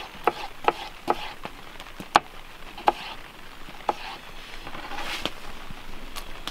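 Kitchen knife slicing tomatoes on a plastic cutting board: about ten irregular, sharp taps of the blade striking the board, the loudest about two seconds in.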